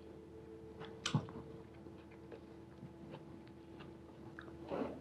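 A man eating with his hands: faint mouth and chewing noises and small scattered clicks, with a sharper click about a second in and a short burst of noise near the end, over a steady low hum.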